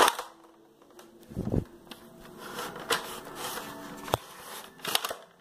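Handling noise from a plastic Nerf toy blaster and the phone being moved about: a sharp snap right at the start, a dull thump about one and a half seconds in, then scattered light clicks and knocks.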